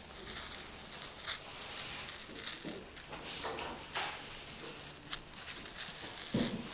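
Scattered light clicks and scrapes of hands working a woodblock and its tools, over faint room noise, with a louder short knock near the end.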